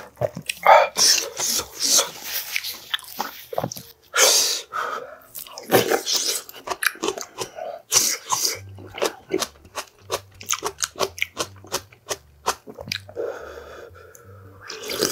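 Close-miked eating sounds: wet chewing and quick mouth clicks, broken several times by loud noisy slurps, the last of them of hot kimchi stew broth sipped from a wooden spoon near the end.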